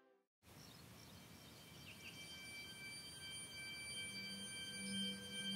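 Ambient musical drone fading in after a brief silence: several high sustained ringing tones over a low tone that swells in the second half, with a few faint chirps.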